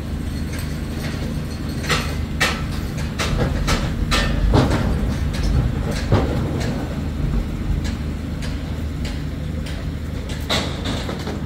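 Metallic clanks and bangs of a fairground ride being taken apart, a string of them between about two and seven seconds in and two more near the end, over a steady low engine drone.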